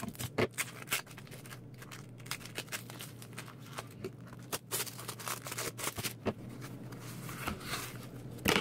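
Plastic packaging being opened by hand: irregular crinkling with scattered sharp crackles and snaps.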